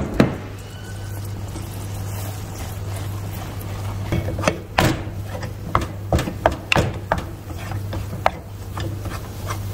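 Wooden spoon stirring flour into hot water and melted butter in a ceramic-coated pan, then beating the thickening choux dough with sharp, irregular knocks against the pan from about four seconds in, as the paste gathers into a ball. A steady low hum runs underneath.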